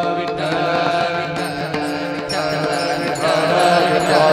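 Devotional kirtan chant: voices chanting in unison over a harmonium, with a steady percussion beat.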